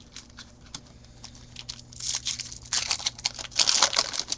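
A trading card pack wrapper being torn open and crinkled, with loud crackling from about halfway through to near the end, after a few faint clicks of card handling.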